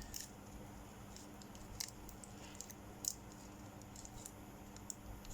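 Faint, scattered clicks and rustles of adhesive tape being handled and wrapped by hand, a handful of small ticks over a low steady hum.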